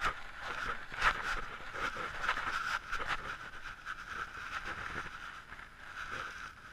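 Handling noise: irregular knocks and scrapes as a DSLR camera and its strap are handled right against the body-mounted camera, the sharpest knock about a second in, over a steady background hiss.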